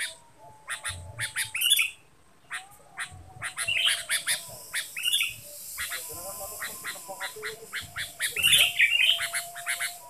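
Sooty-headed bulbul calling: a rapid string of short, sharp chirps broken by a few bubbly warbled phrases, with a brief lull about two seconds in.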